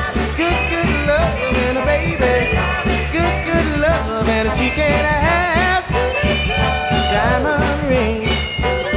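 A song with a band playing: a singing voice over a steady beat.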